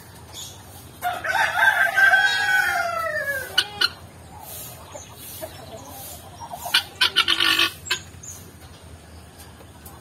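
Rooster crowing once, a long arching call starting about a second in. A few seconds later comes a short burst of rapid harsh calls from the caged fowl.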